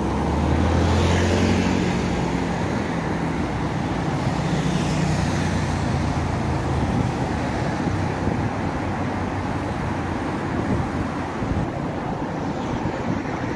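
City road traffic: cars passing on a busy avenue, with the low hum of a heavier vehicle's engine through the first half, loudest about a second in.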